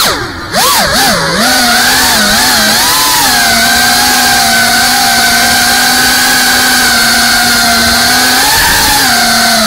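FPV freestyle drone's motors whining in flight. The pitch dips and swoops with quick throttle changes in the first second and a half, with two brief drops in loudness. It then holds a steady whine for several seconds and dips and rises again near the end.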